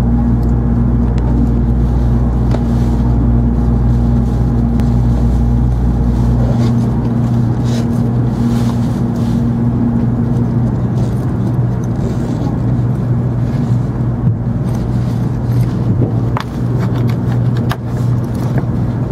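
Steady electrical hum of an N700 series Shinkansen standing at the platform, its onboard equipment running, heard from inside the car. It is several low held tones over a noisy background. The deepest drone cuts off about six and a half seconds in, a higher tone about ten seconds in, and there are a few light clicks.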